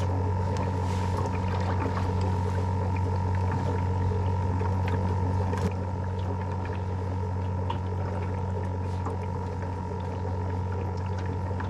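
Steady hum from a small electric motor on an aluminum fishing boat, even in pitch and level, with a few light taps over it.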